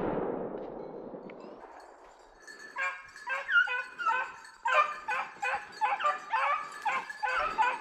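The rolling echo of a 20-gauge shotgun shot dies away over the first two seconds, then beagles bay over and over, about three calls a second: hounds in full cry on a snowshoe hare's track.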